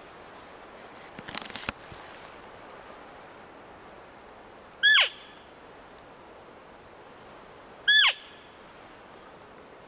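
Two loud, short cow-elk mews about three seconds apart, blown on an elk call. Each is a high squeal that drops steeply in pitch, and the two are nearly identical. A brief rustle of handling about a second in.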